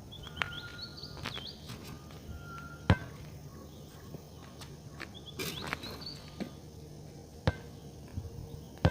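Birds chirping in short high calls that rise and dip in pitch, with a couple of brief steady whistles, while sharp clicks or knocks sound every few seconds, four times in all.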